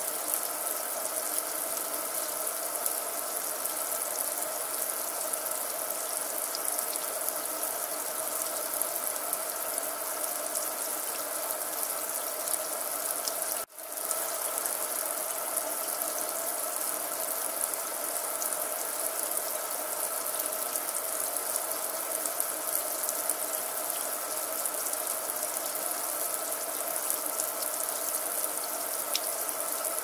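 Water running steadily from a tap in a constant stream, an even splashing hiss. It cuts out for a split second about halfway through, then carries on unchanged.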